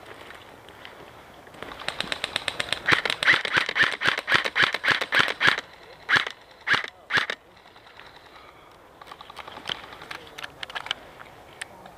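Airsoft gun firing a rapid full-auto burst of about four seconds, a few separate shots right after, and fainter scattered shots near the end.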